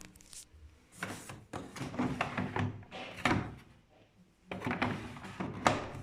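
Washing machine being handled: a run of plastic knocks and clatters, in two spells with a short pause between, like a door or drawer being worked.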